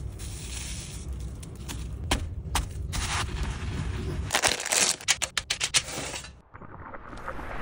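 Brittle freeze-dried candy crumbling and crackling, crushed by hand and then ground with a pestle in a stone mortar, with a run of sharp cracks and crunches toward the end of the grinding. It breaks off briefly near the end.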